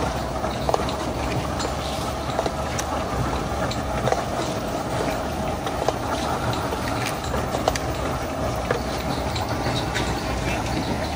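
Small boat engine running steadily as the boat travels along the canal, a constant low rumble with a steady drone over it and light rattling clicks.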